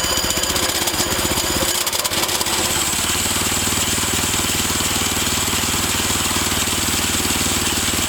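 Small single-cylinder Predator gasoline engine driving a bandsaw sawmill, running steadily. Its note changes about two to three seconds in, then holds even.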